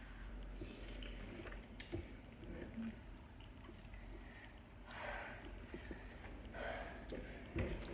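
Soft eating sounds of spicy instant noodles being slurped and chewed, with three short breathy hisses about a second in, around five seconds in and near the end.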